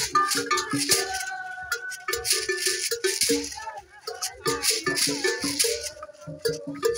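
Beaded gourd rattles (shekere) shaken in a quick, steady rhythm, over short repeated pitched percussion notes, with women's voices singing along.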